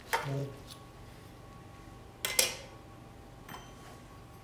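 A metal knife clinking against a cast iron skillet, twice: once just after the start and more loudly about two and a half seconds in, as the knife is set down on the pan.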